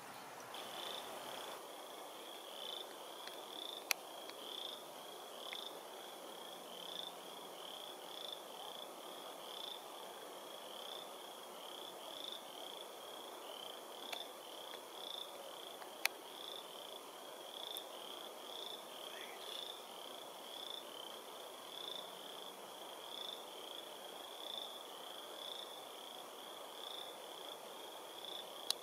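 Small creature chirping steadily in a regular series of short high calls, about two a second, over a faint outdoor hiss, with a couple of sharp clicks.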